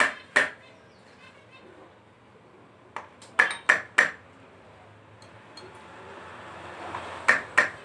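Sharp metal-on-metal clinks with a short ringing ping from a motorcycle front fork being reassembled, the steel fork tube and hand tools knocking against the aluminium lower leg while the new oil seal is worked into place. About eight clinks: two at the start, a quick run of four around the middle, and two near the end.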